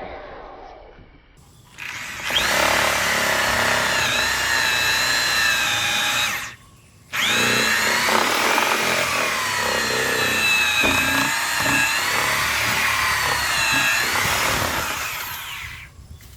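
Half-inch DeWalt drill spinning a homemade pipe hole saw with cut teeth through a straw bale wall, the straw scraping against the pipe. It runs in two goes, the first for about four seconds and the second for about eight after a short stop, with the motor's whine wavering in pitch under load.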